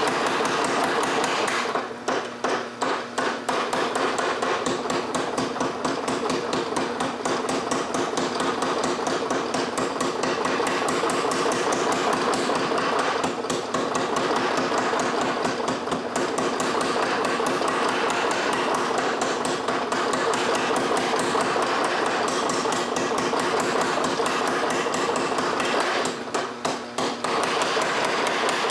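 Rapid, steady hammer blows forging a red-hot 4140 steel rod, with short pauses about two seconds in and near the end, over a steady hum.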